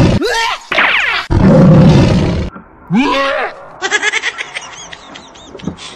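Recorded lion roar: a rising call, then a loud, long roar that stops about two and a half seconds in. Quieter, rapid high sounds follow.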